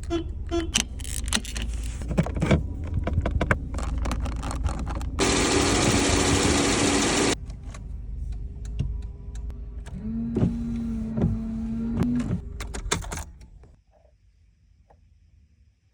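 Inside a 1994 Volvo 940: a run of clicks and knocks from its interior controls, then a loud steady rush for about two seconds. After that a small electric motor whines for about two seconds, over a low rumble that stops about thirteen seconds in.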